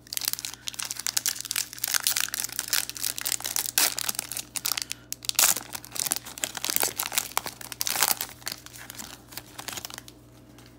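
Wrapper of a 2021 Topps Series 1 baseball card pack being torn open and crinkled by hand, a dense run of crackling that stops about ten seconds in.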